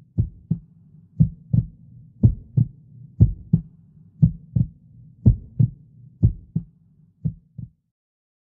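Heartbeat sound effect: double thumps about once a second over a low drone, eight beats in all. The last beat is softer and the sound stops shortly before the end.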